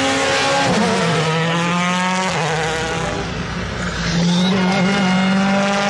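Rally car engines running hard at high revs. The car passing close drops in pitch about a second in, and another car's engine grows louder from about four seconds in as it comes down the stage.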